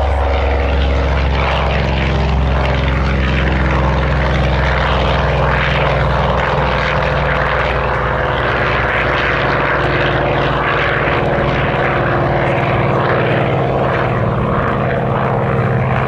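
Grumman F6F Hellcat's Pratt & Whitney R-2800 radial engine and propeller running loud and steady on a pass. The deep engine drone eases about midway as a rushing noise of propeller and air grows.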